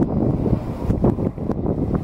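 Wind buffeting the camera's built-in microphone, a gusty low rumble that rises and falls irregularly.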